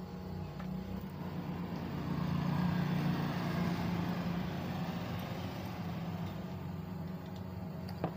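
A motor vehicle's engine swelling and fading as it passes, over a steady low hum, with a single sharp click near the end.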